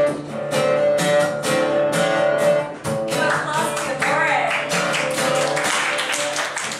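Acoustic guitar strummed and picked in a steady rhythm, with a brief vocal phrase about three seconds in. About four seconds in, hands start clapping along in time.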